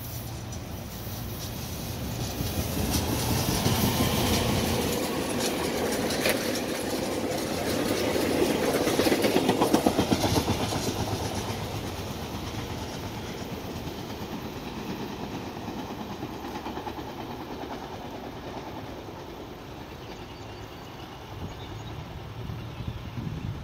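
SEPTA Silverliner V electric multiple-unit train passing by. It grows louder and peaks about ten seconds in with a rhythmic clatter of its wheels, then fades as it runs off down the line.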